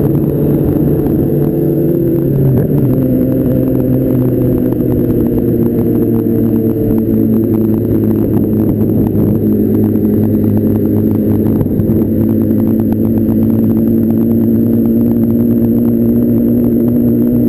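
Sport motorcycle engine running under way, heard from the bike itself. Its pitch drops about two and a half seconds in, then holds steady and rises slightly near the end.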